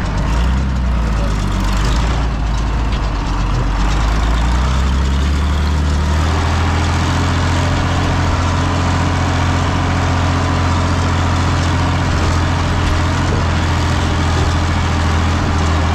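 Tractor engine running steadily under load while pulling a disc harrow across a field. The engine note rises about five seconds in and then holds steady.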